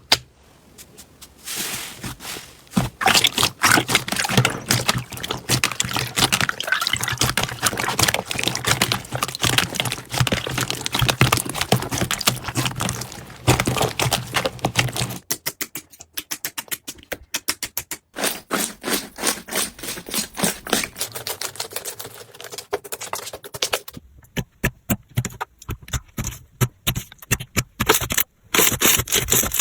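Slime being squeezed and played with by hand: dense, rapid crackling and clicking with wet pops. The character of the crackle changes about halfway through and again near the end.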